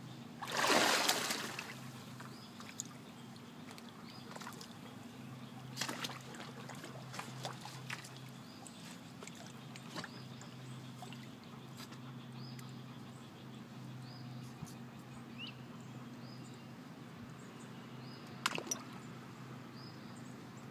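A dog wading in shallow water, with one loud splash about half a second in, then quieter sloshing and dripping with a few sharp small splashes. A steady low hum runs underneath.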